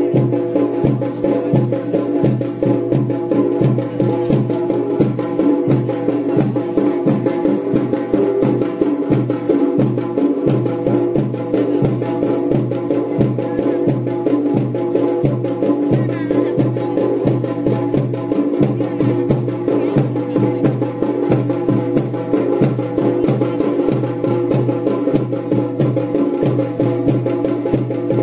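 Traditional Pahari folk drumming with quick, even beats over a steady held tone, played for a dance before a village deity.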